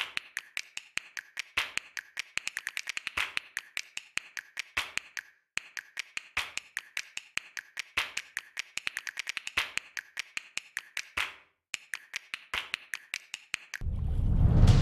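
Rapid clicking sound effect, several sharp ticks a second, like a number counter running up, in three runs with brief breaks between them. A deep low rumble comes in near the end.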